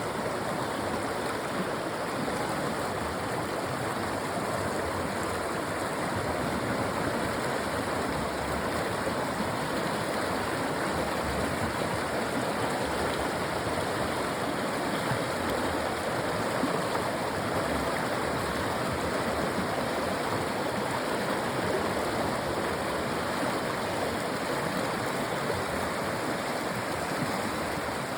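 Steady rush of running water, even and unbroken, with no distinct knocks or tones.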